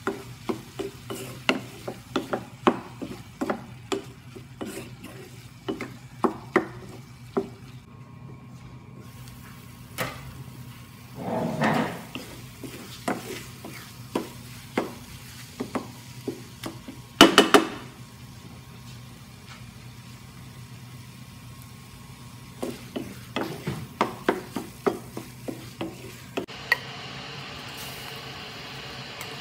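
Spoon stirring in a cooking pot, a string of sharp knocks and scrapes against the metal over a steady low hum, with one louder clang about 17 seconds in. Near the end a steady sizzle starts.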